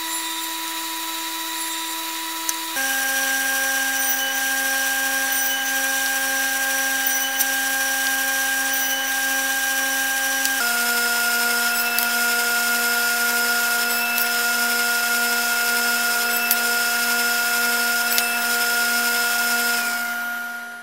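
Table saw running with a steady whine and a few faint clicks. Its pitch drops abruptly twice, about three and eleven seconds in, and it fades out at the very end.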